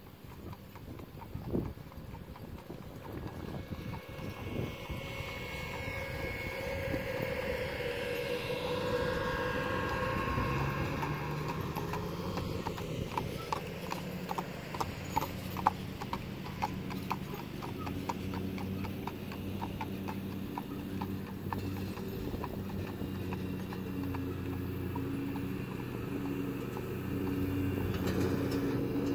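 A horse's hooves clip-clop on asphalt in a steady rhythm of a few beats a second as the horse pulls a cart past, plainest around the middle. A riding mower's engine hums steadily underneath in the second half and grows louder near the end.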